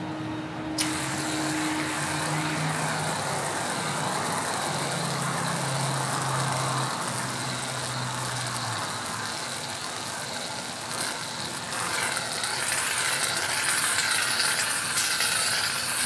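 Aerosol whipped cream can spraying in one long hiss that starts abruptly about a second in, growing louder and harsher in the last few seconds.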